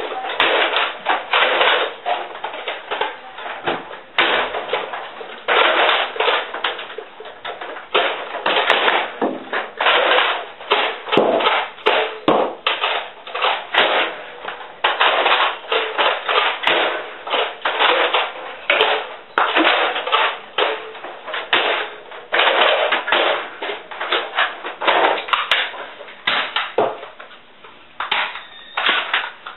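Nerf foam-dart blasters clacking as they are primed and fired, with a dense run of plastic clatters and knocks.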